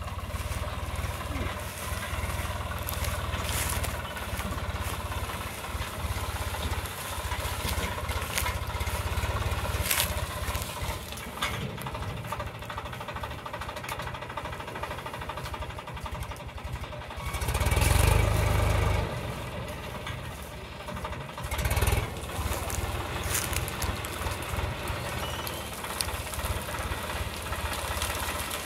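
Tractor diesel engine running steadily as it pulls a sugarcane harvesting attachment through the cane. The engine swells louder twice, for about a second each, in the last third. There are a few sharp cracks now and then.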